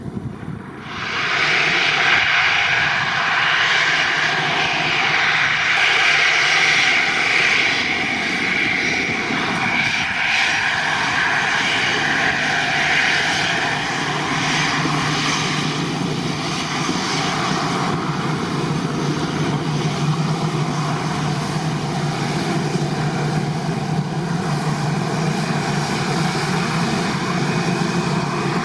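Airliner engines at close range: a loud rush of engine noise starts suddenly about a second in, then eases from around fourteen seconds into a steady running sound with a low drone as an Airbus A321 taxis past.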